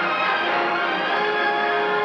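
Orchestral title music playing held chords, with a new lower note entering a little after a second in.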